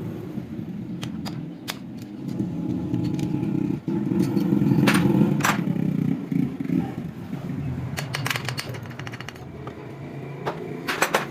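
A motorcycle engine running, louder for a few seconds in the middle, with sharp metallic clinks of tools on nuts and bolts scattered through it.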